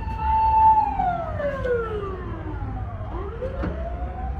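Emergency vehicle siren wailing: a held high note that slides down over about two seconds and climbs back up near the end, over low traffic rumble.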